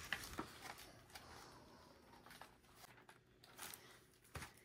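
Faint paper rustling and a few soft taps as the large page of a hardcover picture book is turned by hand.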